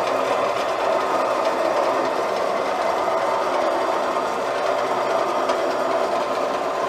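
The drive of a homemade dual-axis solar tracker running as the wheeled tracker moves itself to a new position: a steady, unbroken mechanical hum.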